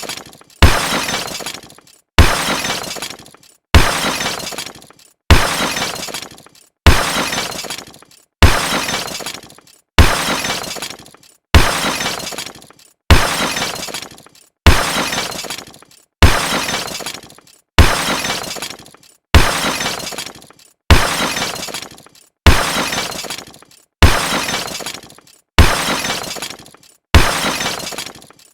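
A crash sound effect: a sudden smash that dies away over about a second, repeated the same way about every second and a half.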